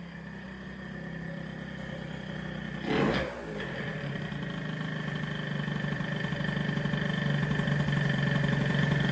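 Two-stroke engine of a Piaggio NRG MC2 scooter, freshly rebuilt with a 70cc kit and Leovince ZX exhaust, running steadily and slowly getting louder, with one brief loud burst about three seconds in.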